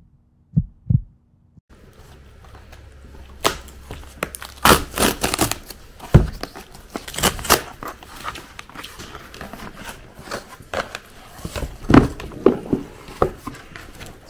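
Cardboard shipping box being opened by hand: cardboard rustling, scraping and tearing, with many sharp clicks and knocks as the flaps are pulled open. Near the start there are two short low thuds, like a heartbeat.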